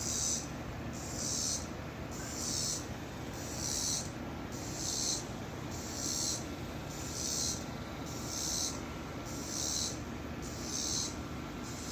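An unseen creature's call: a short, high, rasping hiss repeated very regularly, about once a second, over a steady low background rumble.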